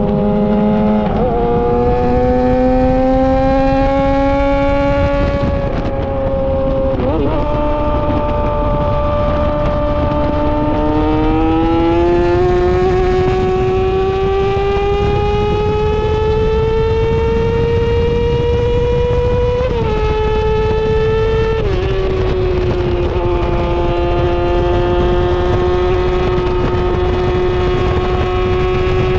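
Yamaha R6 inline-four sport bike engine running through an SC-Project titanium exhaust. Its pitch climbs slowly for several seconds, drops sharply in two steps about twenty seconds in, then holds steady.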